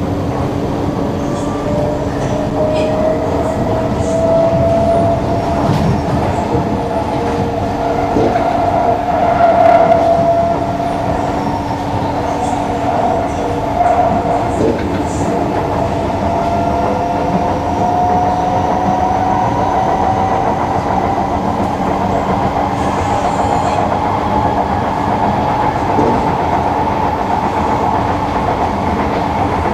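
Interior running noise of a Singapore MRT electric train. A motor whine climbs slowly in pitch over about the first ten seconds as the train gathers speed, then holds steady over the rumble of the wheels on the rails, with a few faint knocks.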